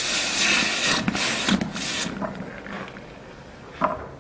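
Tempered steel axe head plunged into water to cool, hissing in about three quick surges over the first two seconds and then dying away; a short metal clink near the end.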